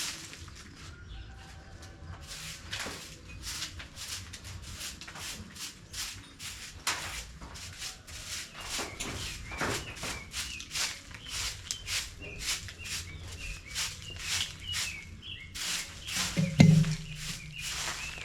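Quick, repeated scraping strokes, about three or four a second, as chicken manure is cleared off a coop floor. Birds chirp faintly from about halfway, and two loud low thuds come near the end.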